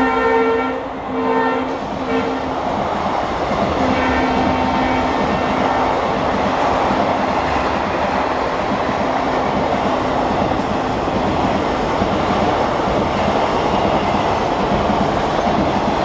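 WDG-4 diesel locomotive's horn sounding: a long blast that breaks into short toots in the first couple of seconds, then a fainter held note from about four to eight seconds in. Under it, a long rake of passenger coaches rolls past with steady wheel rumble and clatter.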